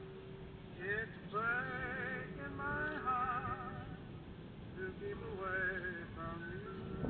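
Recorded music: one melody line with a wide vibrato and upward-sliding entries, over a steady low rumble.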